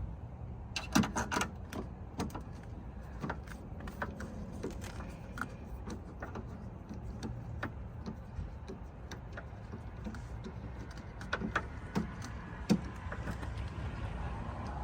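Irregular clicks and knocks of hand tools and metal parts being handled while working at the bolts inside a car door, the sharpest about a second in and again near the end, over a steady low rumble.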